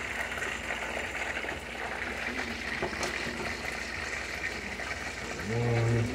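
Chicken pieces sizzling and bubbling in a covered frying pan, a steady hiss. Near the end a man's voice gives a short low hum.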